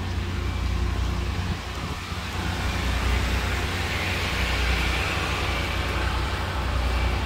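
Steady low motor hum with an even background hiss.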